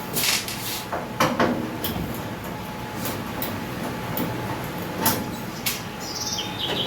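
Scattered clicks, knocks and scrapes of metal being handled as the microwave's outer cabinet is opened up, a few sharp knocks standing out.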